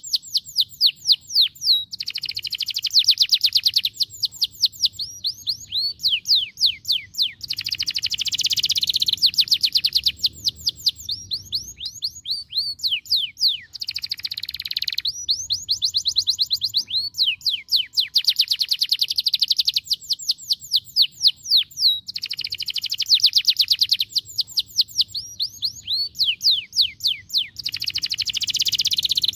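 Domestic canary singing a continuous, high song of rapid trills, each fast run of repeated notes giving way to a different one every second or two.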